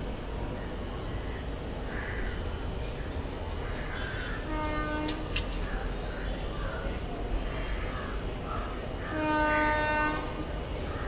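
An approaching passenger train's electric locomotive sounds its horn twice: a short blast about four and a half seconds in, then a longer one about nine seconds in, over the low rumble of the train. A bird chirps repeatedly in the background.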